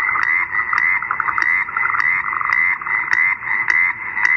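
Recorded frog croaking played through the small speaker of an Enabling Devices Animal Rocks touch toy, set off by pressing its frog panel: a steady run of croaks, about three a second.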